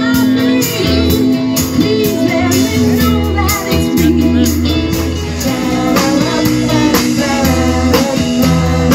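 A song with a singing voice over bass and a steady drum beat.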